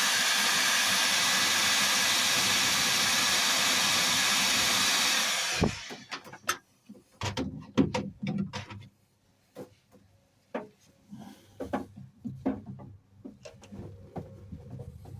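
Heat gun blowing a steady hiss as it warms a fuel hose to make it more pliable, switched off about five and a half seconds in. Scattered clicks and knocks follow.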